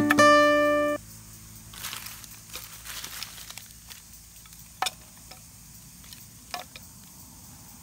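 Guitar music that stops about a second in. Then soft rustling and a couple of short, sharp wooden knocks as sticks of firewood are handled and laid onto a small fire.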